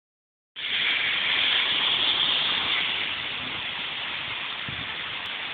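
Steady hiss of a rainy street, starting about half a second in and easing slightly.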